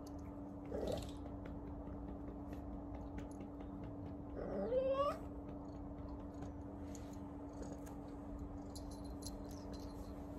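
Domestic cat meowing: one drawn-out call about four and a half seconds in, rising in pitch, after a shorter sound about a second in, over a steady low hum.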